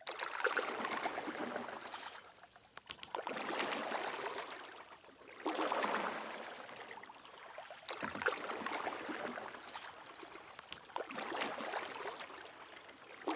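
Small waves washing onto a lakeshore, a swell of rushing water about every two and a half seconds.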